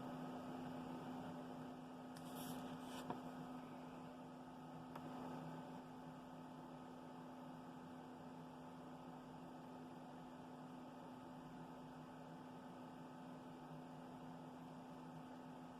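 Quiet, steady electrical hum, with a faint brief rustle about two and a half seconds in.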